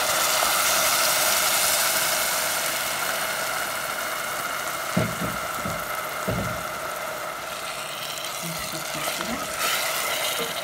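Tomato purée sizzling loudly in hot fat on a pan of browned onions as it is stirred with a wooden spoon. The sizzle fades slowly and flares up again near the end, with a couple of low knocks from the spoon about halfway through.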